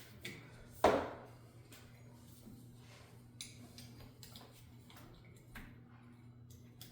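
Metal tools clinking and knocking against metal parts during hand disassembly of a backhoe control valve: one sharp, ringing metallic clank about a second in, then a few light clicks.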